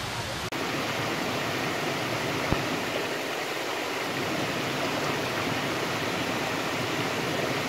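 Mountain stream rushing steadily over a rock slab and into a pool below a small waterfall. One brief click about two and a half seconds in.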